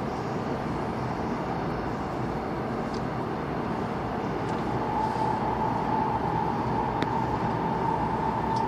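Airport Railroad express train running through a tunnel: a steady rumble of wheels on rail, joined about five seconds in by a steady whine, with a few faint clicks.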